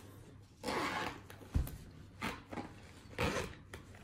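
Zippered fabric shoulder bag for a DJI drone being unzipped and opened: a few short zipping and rustling strokes, with a soft knock about one and a half seconds in.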